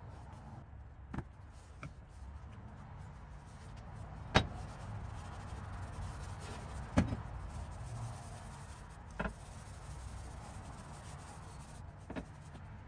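A handful of short, sharp knocks and clacks from the maul's steel head and wooden handle being handled and set against a steel workbench top. The loudest comes about four seconds in, with light rubbing and handling noise between the knocks.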